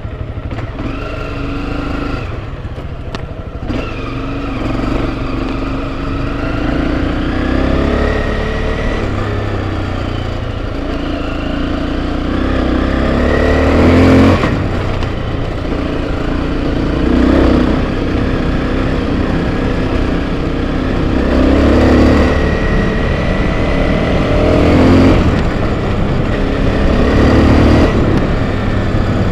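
Enduro motorcycle engine revving up and down on a dirt trail, its pitch rising and falling and swelling louder every few seconds, over a steady low rumble.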